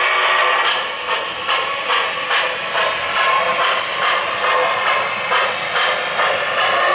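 O-gauge model of the Norfolk & Western J-class 4-8-4 steam locomotive pulling away, its onboard sound system giving a rhythmic steam chuff that quickens as the engine picks up speed.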